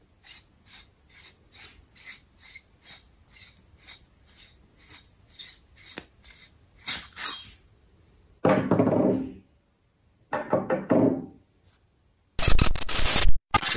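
Victrix Gladio V rifle bolt being unscrewed by hand from its bolt assembly: a run of faint, even metal clicks, about two and a half a second, as it turns. The clicks are followed by metal parts sliding and rubbing apart, and a loud clatter near the end as the parts are set down on a wooden table.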